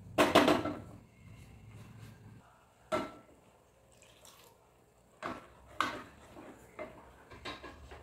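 A wooden spatula tapping and knocking against a ceramic-coated cooking pot, with a quick cluster of taps, the loudest, just after the start. A single knock follows about three seconds in, then a few more clinks and knocks of cookware near the end.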